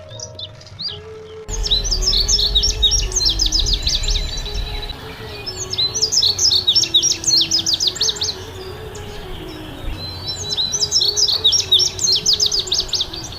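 Small birds chirping in three bouts of rapid, sharp, high downward-sweeping notes, with short gaps between bouts.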